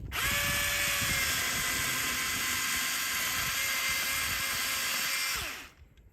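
Milwaukee M18 battery chainsaw's electric motor and chain running at full speed with a steady high whine, then the trigger is let go and it spins down with falling pitch near the end.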